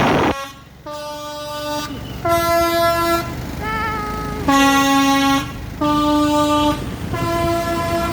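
Indonesian bus 'basuri' melodic horn playing a tune of held notes, each about a second long at a different pitch. A short noisy blast comes right at the start.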